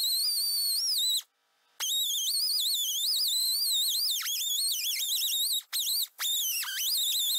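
Die grinder with an abrasive disc grinding corrosion off the inside of a winch motor's steel housing. Its high whine wavers and sags in pitch as the disc bites. It cuts out for about half a second just after the start, and drops out briefly twice more later on.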